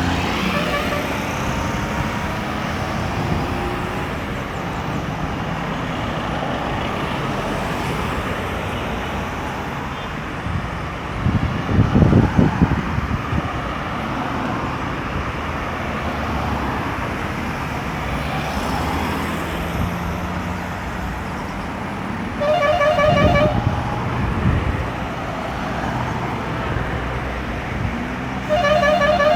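Steady road traffic, with engines and tyres passing continuously and a loud low rumble of a heavy vehicle near the middle. A car horn gives two short toots, one a few seconds before the end and one at the very end.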